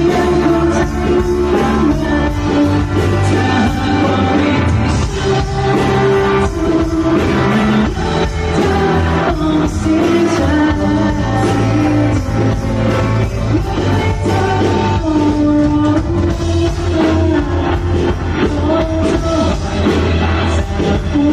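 A live rock band playing through a PA in a large room, with a singer's voice over electric guitar, bass and drums, during a sound check.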